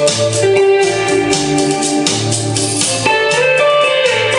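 Guitar music with a bass line and sustained organ-like keyboard tones, played through DIY distributed-mode flat-panel speakers driven by Dayton Audio exciters.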